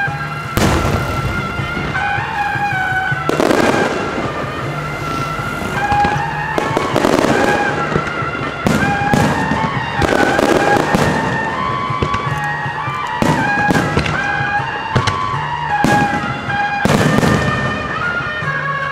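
Aerial firework shells bursting one after another, in sharp bangs and longer crackling rolls. Melodic music plays throughout.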